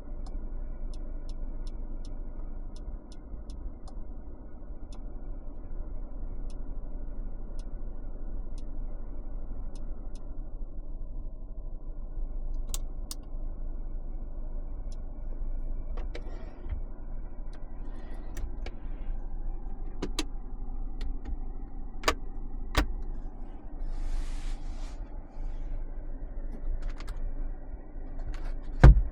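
Cabin noise of a 2025 Mercedes-Benz C 200 on the move: a steady low road and engine rumble, with a few sharp clicks or knocks, the loudest near the end.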